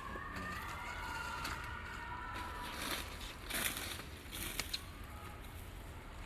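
A drawn-out, wavering animal call lasting about two and a half seconds, followed by a few short rustles and clicks.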